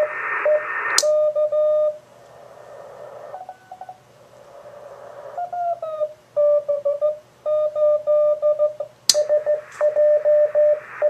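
Morse code (CW) signal received on an Icom IC-746 transceiver on the 40-metre band, heard through an NE QRP SCAF-1 switched-capacitor audio filter: a keyed tone beeping out dots and dashes. A click about a second in cuts away the background hiss and leaves the tone clean. Midway the tone slides down a little in pitch as the radio is retuned, and a second click near the end brings the hiss back as the filter is bypassed.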